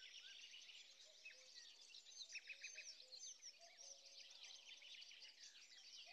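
Faint birdsong: many small birds chirping and calling, with a quick run of about four repeated notes about two and a half seconds in.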